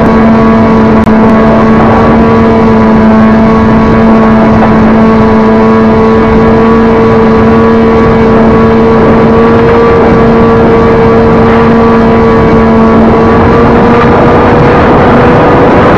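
Loud, steady drone of a small RC plane's electric motor and propeller, with heavy wind rush over the onboard camera's microphone. The drone holds two steady tones. The lower one drops out near the end as the higher one edges up slightly.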